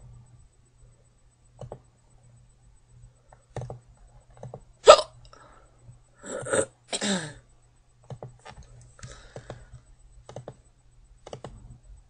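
A girl's hiccups: one loud, sharp hiccup about five seconds in, followed by two short breathy sounds, with faint scattered clicks around it.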